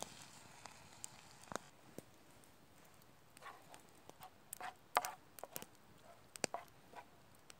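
Small campfire crackling with sharp pops. From about three seconds in, a wooden spoon scrapes and knocks against a frying pan as baked beans are stirred.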